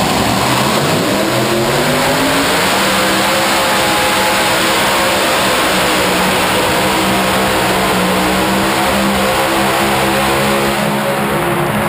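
Modified pulling tractor's engine running at full throttle under load while dragging the sled: the pitch climbs over the first few seconds, then holds high and steady through the pull, and the engine note cuts off near the end.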